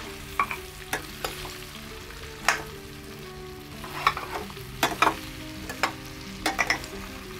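Sliced bitter gourd (karela) in a gram-flour spice coating frying in oil in a stainless steel kadai, sizzling steadily while a metal spoon stirs it, scraping and clinking against the pan several times.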